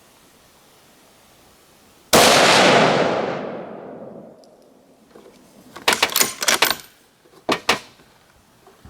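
A single shot from a .308 Winchester bolt-action rifle, with a long echo that fades over about two seconds. Around four seconds later come a quick run of sharp metallic clicks and then two more: the bolt being worked to eject the case and chamber the next round.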